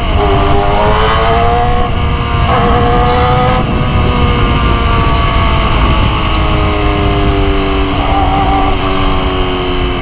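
Big motorcycle's engine under way, its pitch rising sharply, dropping back about half a second in and again about two and a half seconds in, then slowly sinking as the bike eases off. A steady low rumble of wind and road noise runs beneath it.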